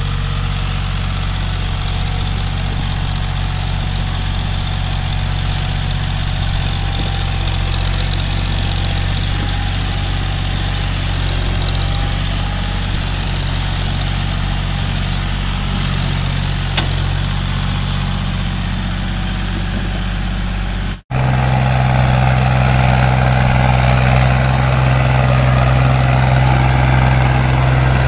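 Diesel tractor engines running steadily under heavy load while pulling loaded trolleys through sand. About 21 seconds in, the sound cuts abruptly from a John Deere tractor to a Sonalika tractor, a little louder and with a stronger low hum.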